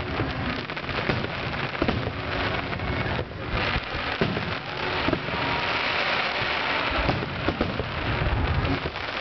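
Fireworks grand finale: a dense, continuous crackling from crackle-star shells, thickest through the middle, with many overlapping bangs of shell bursts throughout.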